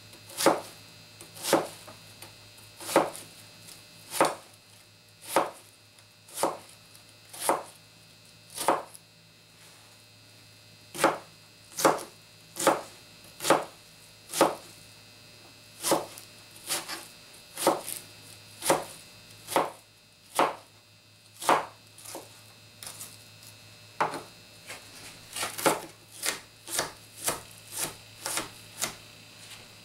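Hovey's Knives of China medium utility knife chopping an onion on a plastic cutting board, in sharp knocks about one a second. After a pause of about two seconds a third of the way in, the strokes resume and quicken to about two a second near the end.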